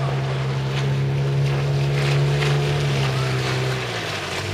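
A 5 hp outboard motor pushing an inflatable boat at speed: a steady engine drone that drops slightly in pitch near the end.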